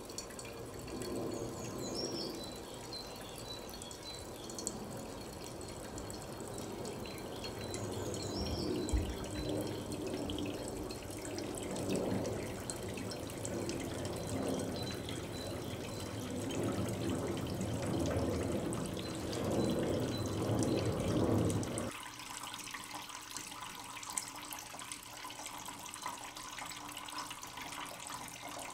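Steady rushing, trickling noise like running water, swelling and easing, with a couple of faint high chirps. Its deeper part cuts off abruptly about 22 seconds in, leaving a thinner hiss.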